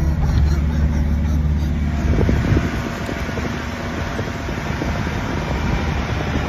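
A truck driving on a bush track: steady engine and road noise heard from inside the cab, turning rougher and more buffeting about two seconds in, as wind hits the microphone through the open side window.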